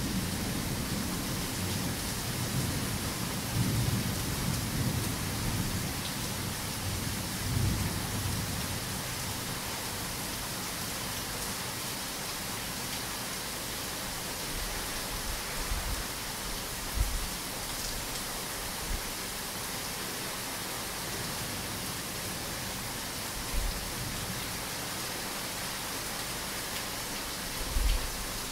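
Heavy rain falling steadily, with low thunder rumbling through the first several seconds. A few short, low thumps come later on.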